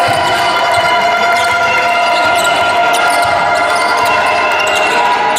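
Basketball being dribbled on a hardwood court during play, soft thumps at an uneven pace, over a steady background of several high tones in a large hall.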